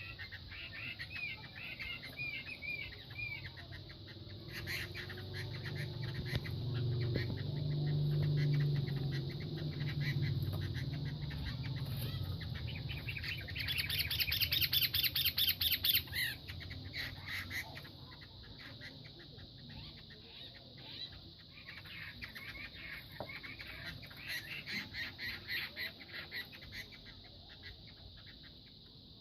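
Fighting gamecocks scuffling: bursts of wing flapping mixed with short clucks and chirps. About halfway through comes a loud, rapid flurry of wing beats.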